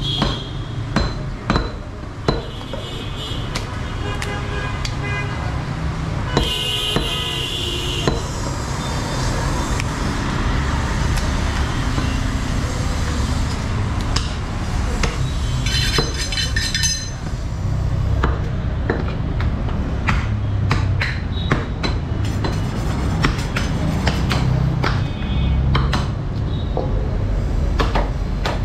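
Butchers' cleavers chopping beef on wooden chopping blocks: irregular sharp chops over a steady low rumble of traffic, with a few brief high-pitched tones.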